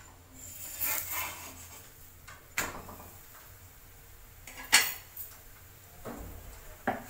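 A spatula scraping under a paratha on an iron tawa and turning it over, followed by three sharp knocks of utensils, the loudest about two-thirds of the way through.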